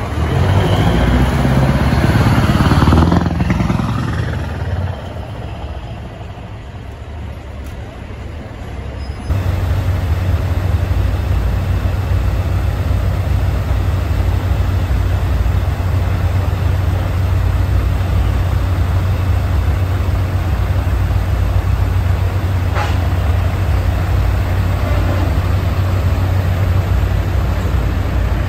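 Scania heavy truck engine loud for the first three seconds or so, then fading away. About nine seconds in the sound changes abruptly to a steady low drone from another Scania truck engine running close by.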